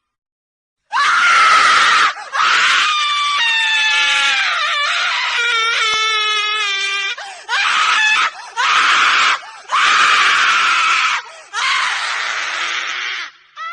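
A woman screaming, about six screams in a row after a second of silence. The second scream is long, with a wavering, gliding pitch, and the later ones are shorter.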